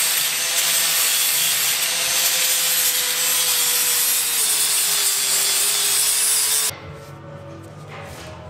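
Angle grinder with a flap disc sanding down fresh welds on a steel exhaust pipe: a loud, steady grinding rush with a motor whine that dips slightly in pitch about four seconds in, then cuts off abruptly near the end.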